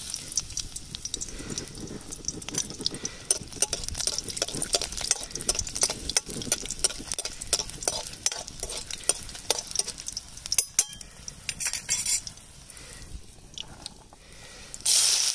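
Garlic frying in hot oil in a kadhai, sizzling with a steady spatter of crackles while being stirred, with a clink of utensil on pan. Near the end the sizzling suddenly grows much louder.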